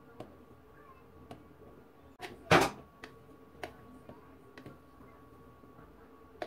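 Flour tipped from a plastic cup into a plastic blender jar, with a short loud rush of flour about two and a half seconds in and light knocks of the cup and spatula against the jar. A faint steady hum runs underneath.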